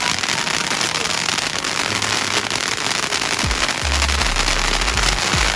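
Consumer fireworks going off: dense, continuous crackling, joined about three and a half seconds in by deep booms.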